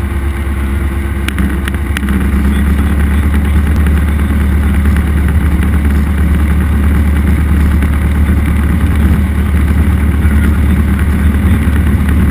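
Cessna 172's piston engine and propeller running, heard inside the cabin as a loud, steady drone. It grows somewhat louder about two seconds in, then holds steady.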